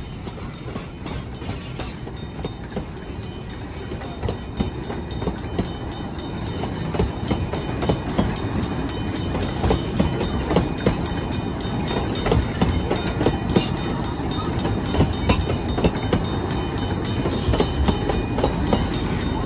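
Narrow-gauge passenger coaches rolling past at close range, their wheels rumbling and clicking on the rails, getting louder partway through.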